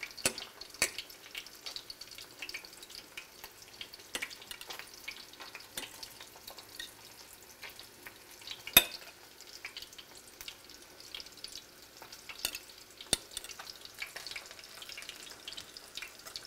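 Flour-and-egg-coated whiting fillets frying in shallow hot oil in a skillet: a steady sizzle with fine crackling spatters. A few sharp clicks cut through, the loudest about halfway through.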